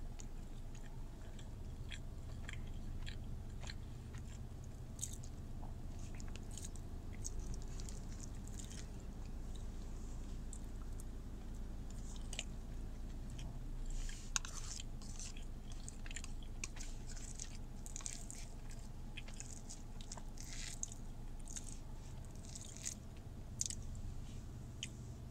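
A person chewing a mouthful of pita bread with hummus close to the microphone: many small crackling mouth clicks, over a steady low hum.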